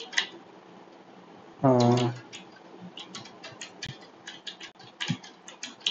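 Computer keyboard keystrokes clicking as digits and spaces are typed, a quick uneven run of them through the second half. A short hummed voice sound about two seconds in is the loudest thing.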